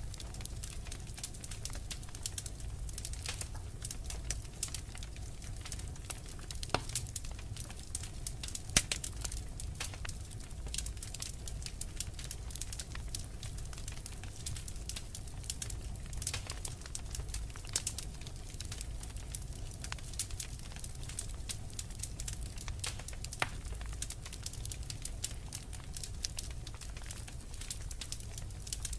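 Fire in a fireplace crackling steadily, a dense run of small irregular pops over a low steady rumble. A few sharper pops stand out, the loudest about nine seconds in.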